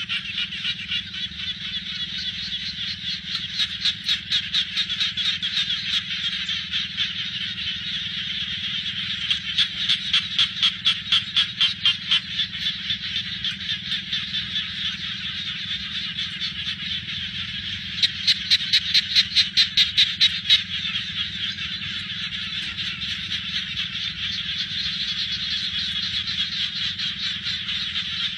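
A dense chorus of frogs calling from flooded rice fields, a continuous high trilling mass. Three times it swells into louder bouts of rapid pulsed calls, about four a second: a few seconds in, around ten seconds, and again near twenty seconds.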